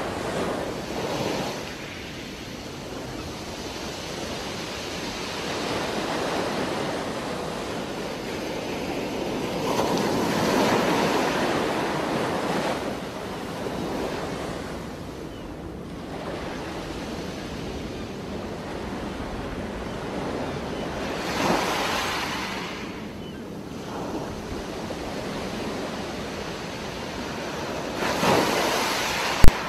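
Underwater sound picked up by a diver's camera: a steady muffled water rush that swells every ten seconds or so with the gush of a scuba regulator's exhaled bubbles. A single sharp click sounds just before the end.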